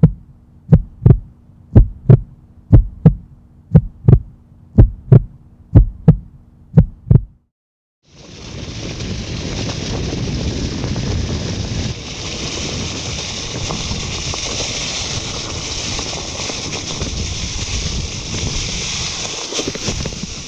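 Heartbeat sound effect: paired thumps about once a second over a low steady hum for about seven seconds, then it cuts off. After a brief silence comes the steady rush of wind and tyre rumble of a mountain bike riding a forest trail, heard through a handlebar-mounted action camera.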